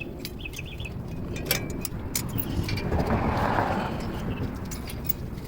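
A vehicle passing by, its noise swelling and fading around the middle, over scattered light metallic clicks of brake pad retaining clips being worked off the caliper bracket.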